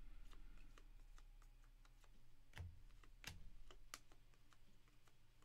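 Faint scattered clicks and ticks of a stack of Panini Prizm soccer trading cards being handled and flipped through by hand, with a few sharper snaps in the middle.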